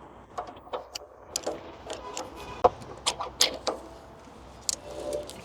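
A series of irregular sharp clicks and knocks, some with a short metallic ring, the loudest about two and a half seconds in.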